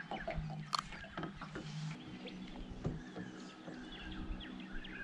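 Small birds chirping in short calls over a steady low hum, with a sharp click a little under a second in and a few faint knocks.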